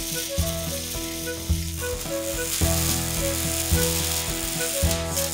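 Electric arc welding: the arc sizzles and crackles steadily as the weld is run. A background music track with a pulsing bass line plays over it.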